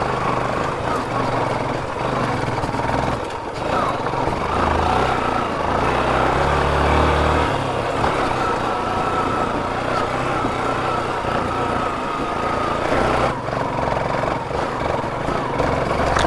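Yamaha FZ motorcycle engine running under load on a steep, rough off-road climb, with a thin steady whine for a few seconds in the middle.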